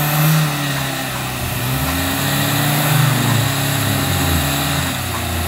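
Off-road 4x4 engine running under load, revving up and down while a vehicle is pulled along a deep mud track on a tow strap.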